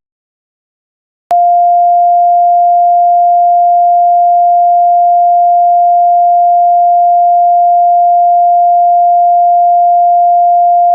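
A loud, steady single-pitch alert tone, the attention signal of a mock Emergency Alert System (EAS) broadcast, which starts with a click about a second in and holds unchanged.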